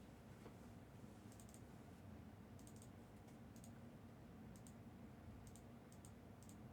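Faint clicking of computer keys in short clusters about once a second, over a low steady hum.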